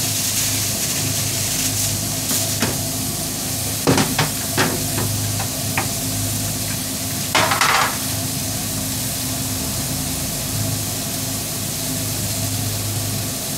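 Seasoned chicken, peppers and onions sizzling steadily on a flat-top griddle under a lid with added steam, over a constant low hum. A few sharp knocks come about four to six seconds in, and a short louder hiss or rustle near the middle.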